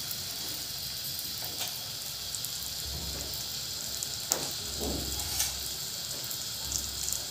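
Sliced onions and green chillies sizzling in hot mustard oil in a kadai: a steady frying hiss with a few faint ticks.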